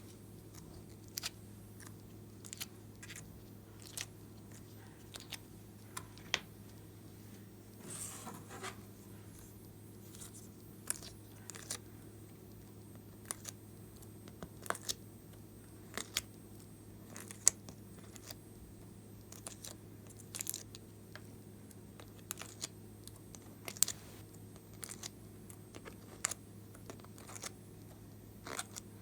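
Glossy slime being squeezed and stretched by hand, giving irregular sharp sticky clicks and small air pops over a steady low hum.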